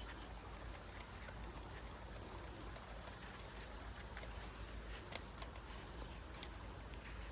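Steady rush of river water flowing, with a few faint clicks about five seconds in.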